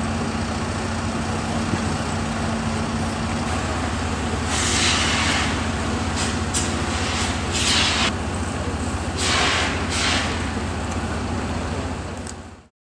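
Steady low rumble of a running engine, with about five short bursts of hissing between four and ten seconds in. The sound stops abruptly near the end.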